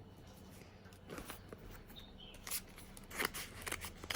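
A package being opened by hand: a handful of short, sharp snips and rustles of packaging, spaced unevenly across a few seconds.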